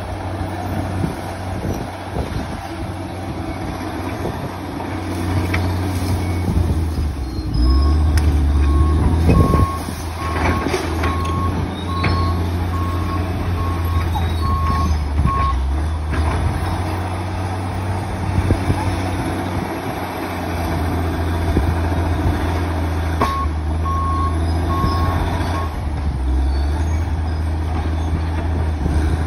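Komatsu D65PX crawler dozer working, its diesel engine running steadily under load with a few knocks. Its reversing alarm beeps in two spells as it backs up, the first about eight seconds in and the second near the end.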